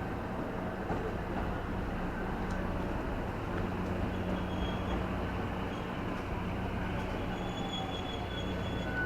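Steady hum of a stationary JR West 213 series electric train's onboard equipment, with faint high thin tones coming in from about halfway through.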